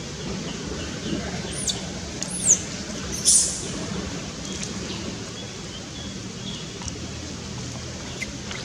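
A few short, high-pitched chirping calls over a steady low hum, the loudest about three seconds in.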